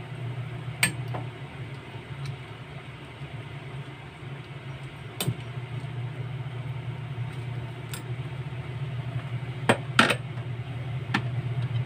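A metal spoon stirring vegetable soup in an enamel pot, clinking sharply against the pot several times a few seconds apart, two of them close together near the end. A steady low hum runs underneath.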